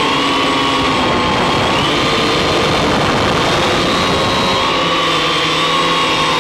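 Octocopter's electric motors and propellers humming in flight, several tones rising and falling gently together as the motor speeds change.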